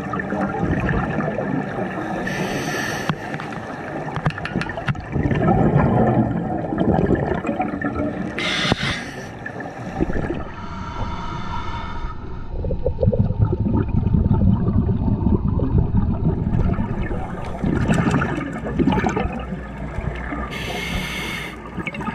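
Scuba diver breathing through a regulator underwater: short hissing inhalations a few seconds apart, between long bubbling, gurgling exhalations.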